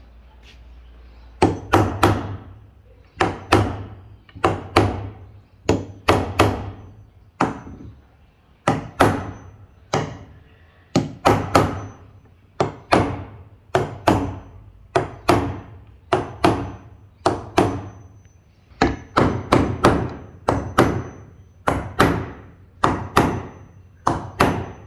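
Hammer striking wood again and again, loud, sharp blows, often two in quick succession, about one a second.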